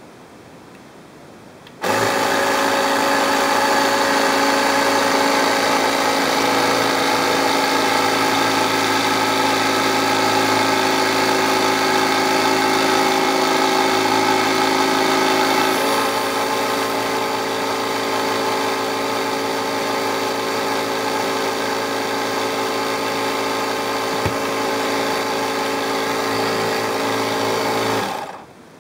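A motor-driven machine running steadily. It starts suddenly about two seconds in, shifts to a slightly lower, quieter tone about halfway through, and cuts off shortly before the end.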